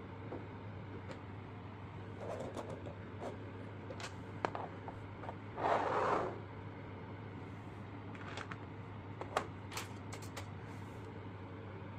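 Small plastic miniature toys being handled and set down on a tabletop: scattered light clicks and taps, with one louder brief rustle about six seconds in, over a steady low hum.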